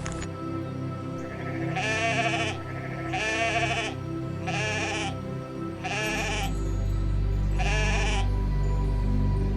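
A sheep or goat bleating five times, each bleat about half a second long with a wavering, quavering pitch, over background music.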